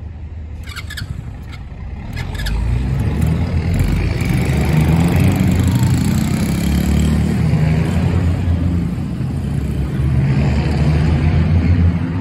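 Vitacci Hawk youth ATV's 107cc single-cylinder four-stroke engine running as the quad is ridden, getting louder about two seconds in and then holding steady.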